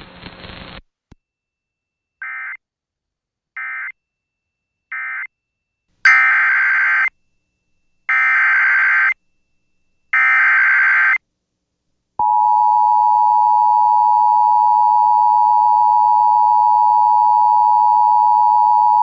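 NOAA Weather Radio EAS signalling: three short end-of-message data bursts, then three longer SAME header bursts of warbling data about two seconds apart. About twelve seconds in comes the steady 1050 Hz warning alarm tone, which announces a new warning.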